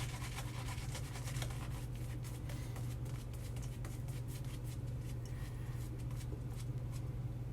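Razor scraping through lathered stubble on the final shaving pass: dense crackling strokes for the first couple of seconds, thinning to scattered ones after. A steady low hum runs underneath.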